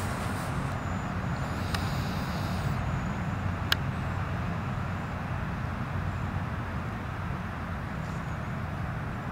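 Outdoor background noise: a steady low rumble, with one sharp click about four seconds in.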